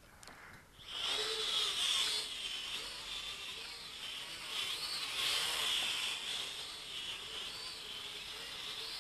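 JJRC H31 toy quadcopter's motors and propellers starting up about a second in, then a steady whine while it hovers, its pitch wavering slightly up and down as the motor speeds are adjusted.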